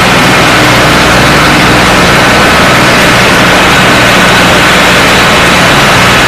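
Small ride-on tractor's engine running steadily as it drives, loud and close, with a steady low drone under a heavy hiss.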